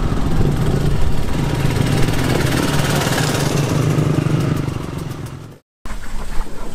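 Dirt bikes riding in at low speed, their engines running steadily; the engine sound fades and cuts off about five and a half seconds in.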